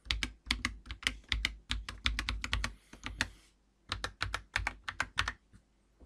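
Typing on an Akko 5075B Plus mechanical keyboard with factory-lubricated Akko V3 Cream Blue switches and PBT keycaps: a quick run of keystrokes, a brief pause a little past halfway, then another run.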